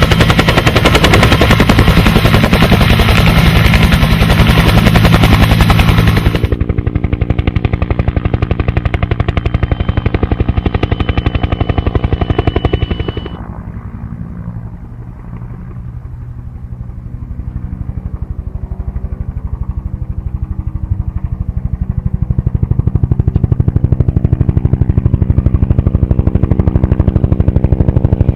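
Aircraft engine running steadily, a loud rapid pulsing with a low drone underneath. The sound turns duller twice, abruptly, about six seconds in and near the middle.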